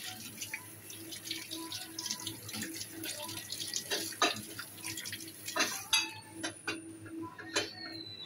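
Tap water running into a stainless steel sink and splashing as a small sauce-dispenser part is rinsed under it, with a few knocks of the part against the sink. About six seconds in the running water stops, and a few sharp clacks follow as parts are set down.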